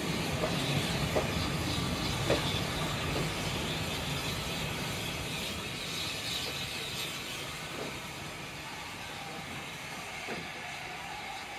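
Passenger train running on the rails, heard from an open window of the coach: steady wheel-and-track noise with a few faint clicks, growing gradually quieter.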